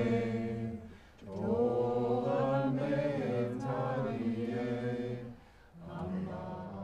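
Chanted vocal music on the soundtrack: voices singing long held notes over a low drone, in phrases of a few seconds with two short pauses between them.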